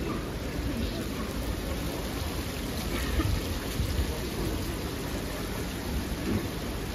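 Steady outdoor street ambience: an even hiss over a low, shifting rumble, with no distinct events.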